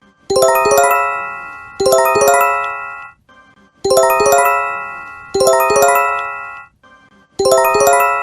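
Japanese emergency alert chime: quick rising runs of bell-like notes struck in pairs, each run fading away, with a short pause between pairs and the pattern repeating about every three and a half seconds.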